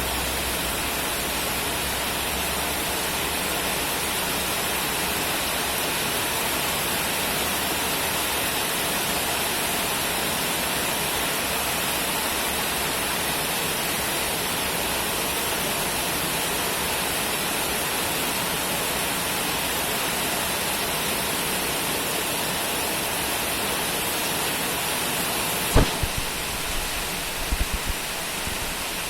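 Steady heavy rain, an even hiss that does not change. Near the end comes one sudden low thump, followed by a few softer low knocks.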